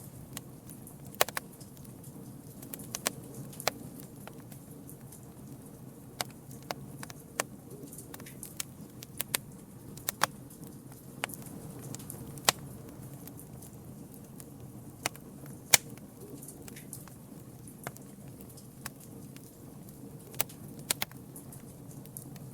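Campfire crackling: irregular sharp pops and snaps, a dozen or more, some much louder than others, over a steady low rumble.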